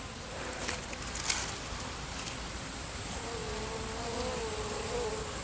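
Honeybees buzzing at the hive entrance. About three seconds in, one bee flies close by for about two seconds, its buzz wavering slightly in pitch.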